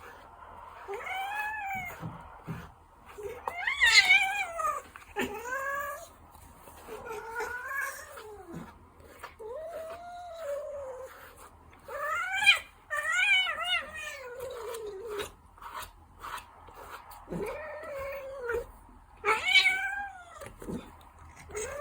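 A Ragdoll cat meowing over and over: a string of drawn-out, arching meows, one every second or two.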